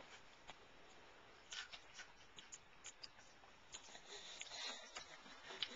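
Near silence with faint, scattered light taps and clicks, from a baby's hands moving on a plastic high chair tray.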